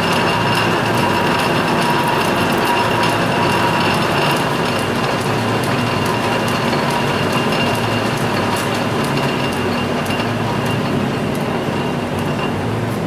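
Metal lathe running under power for thread cutting, a steady mechanical whir from the spindle and gearing with a steady high whine over it, easing slightly after a few seconds.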